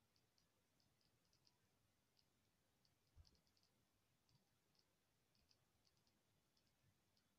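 Near silence, with faint, scattered ticks and one soft low thump about three seconds in.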